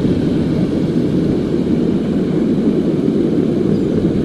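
Steady low rumbling noise of wind buffeting an action camera's microphone, with no clear breaks.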